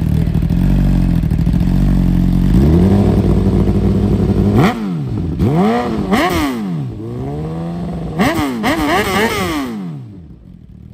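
Inline-four sportbike engine with a full titanium exhaust idling, then revved: a held rise, a string of quick throttle blips that climb and drop sharply, a brief settle back to idle and another quick group of blips. The engine is switched off about ten seconds in.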